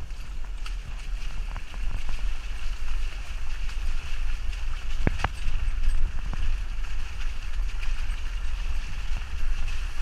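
Jeep Wrangler crawling along a rough, muddy woodland trail: a steady low engine and drivetrain rumble, heard through a camera mounted outside the vehicle, with scattered clicks and knocks as the tyres roll over the trail and one sharper crack about five seconds in.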